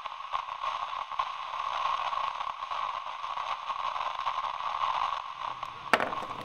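Radio static from a two-way radio receiver: a steady, thin hiss with no low end and a hum-like band in the middle, on a channel where nobody is transmitting after the contact's signal has gone dead. A single sharp click comes just before the end.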